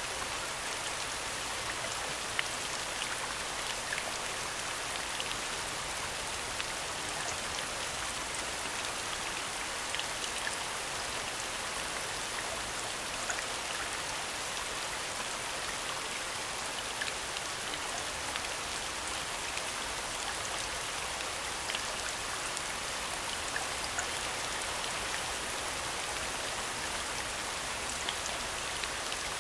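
Steady falling rain, an even hiss with scattered sharp drop ticks throughout.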